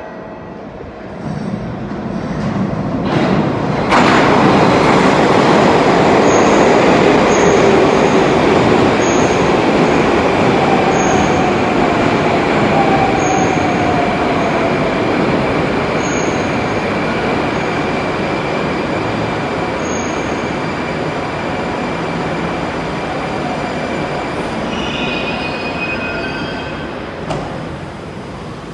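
An 81-760/761 metro train runs into the station alongside the platform with a loud rumble of wheels on rail. As it brakes, a motor whine falls in pitch, and a high brake and wheel squeal comes in near the end as it comes to a stop.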